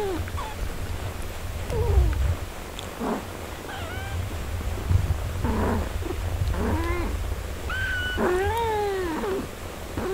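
Newborn kittens mewing while nursing: a string of short, thin, high mews, the longest about eight and a half seconds in, over a steady low rumble.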